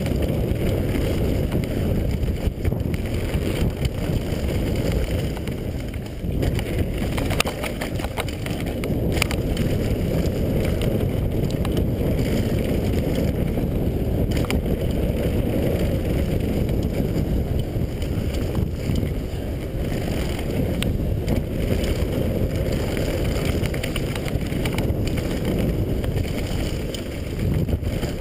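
Wind buffeting the microphone while a downhill mountain bike rolls fast over a dirt and gravel trail, a steady low rush with tyre noise underneath. A few sharp knocks and rattles from the bike come through over bumps.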